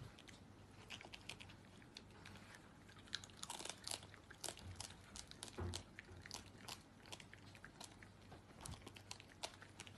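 A raccoon chewing and crunching popcorn, with quiet, irregular crunches and clicks.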